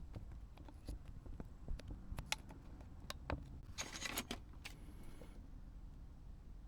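Scattered small clicks and taps from handling a plastic remote control, with a short scraping rustle about four seconds in.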